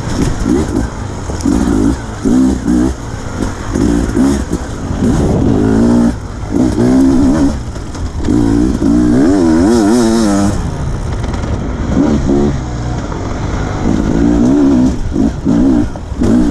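2020 Beta 300RR two-stroke dirt bike engine revving in short bursts of throttle, the pitch rising and falling about once a second and wavering quickly about two-thirds of the way through.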